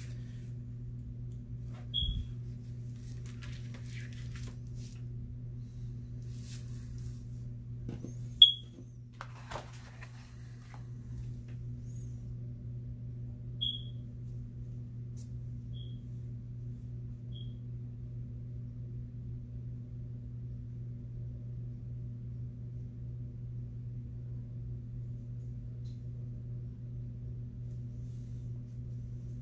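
Steady low electrical hum, with five short high-pitched chirps at uneven gaps over the first twenty seconds, the loudest about eight seconds in and the last two faint. A few faint scratches and rustles of paper and pen come in the first ten seconds.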